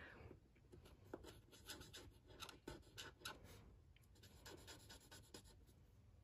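Faint scratching of a Stampin' Blends alcohol marker's fine tip on cardstock as tiny areas are coloured in, with a few light ticks.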